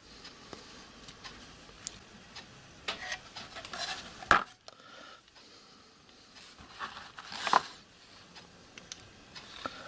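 Steel spindle and small brass gears handled and fitted together by hand: light metal clicks and scrapes, with a sharp click about four seconds in and a louder scrape at about seven and a half seconds.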